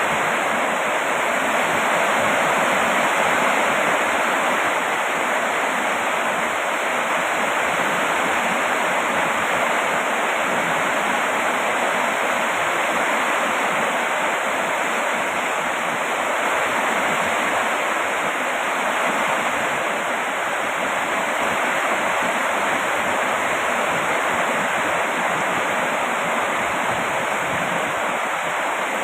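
Heavy rain falling steadily: an even, unbroken rushing hiss with no separate drops standing out.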